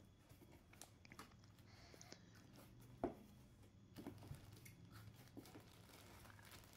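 Faint handling sounds of a cardboard box and the plastic wrapping of a backpack inside it: soft rustles and light knocks, with one slightly louder knock about three seconds in.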